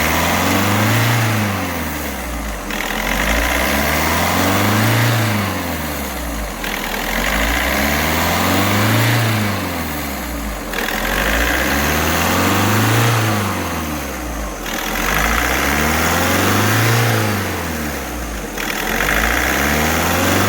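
Volkswagen Vento diesel engine revving up and down by itself in a regular cycle, about once every four seconds. The racing comes from a service routine run from a diagnostic tool, meant to clear the engine's injector knocking.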